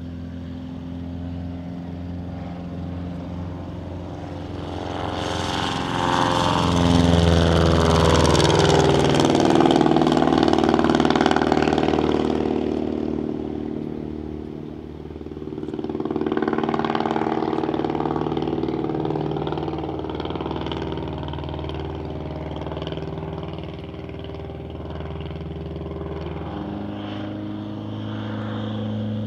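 Piston engine of an S.E.5a fighter biplane at full power on takeoff and climb, growing louder and peaking about six seconds in with its pitch sliding down as it passes. It swells again a few seconds later as it flies over, then runs steadily.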